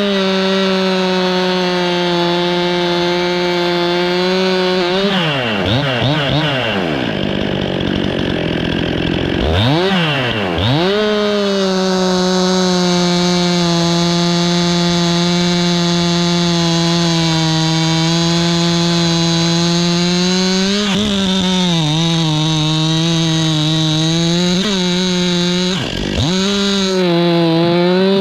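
Stihl MS 261 two-stroke chainsaw running at high revs. Its engine note drops sharply and climbs back twice, a few seconds in and again about ten seconds in, wavers and dips near the end, and then cuts off suddenly.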